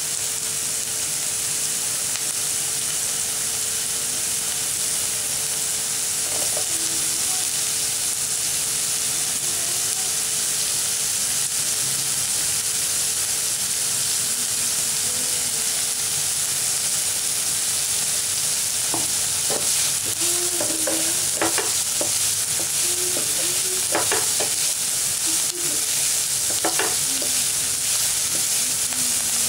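Chopped onions sizzling in hot oil in a nonstick pan: a steady frying hiss. In the second half a wooden spatula stirs and scrapes the pan, giving a run of clicks and knocks.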